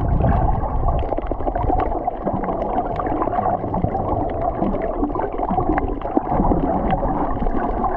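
Underwater sound picked up through a GoPro's waterproof housing: a muffled, steady wash of water with many short clicks and crackles scattered throughout.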